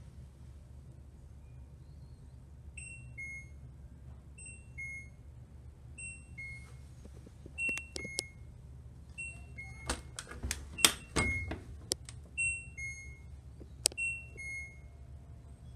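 LG 6.5 kg washing machine sounding its end-of-cycle signal: a two-note falling beep, repeated about every one and a half seconds, about eight times. A few sharp clicks and knocks come about ten to twelve seconds in.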